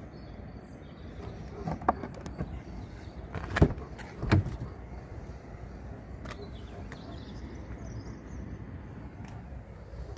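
Rear door of a Peugeot 3008 being unlatched and opened: a few light clicks, then two loud clunks under a second apart about three and a half seconds in, over a steady low rumble.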